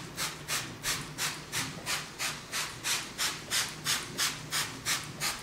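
Paper towel rubbed back and forth over a granite countertop, about three quick wiping strokes a second.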